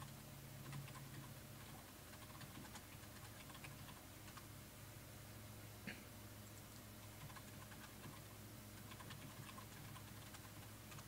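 Near silence with faint, scattered clicks and taps. One click about six seconds in stands out a little.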